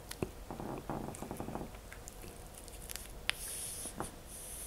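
Faint clicks and small mouth noises close to the microphone in a quiet room, with short bursts of high hiss in the last second or so.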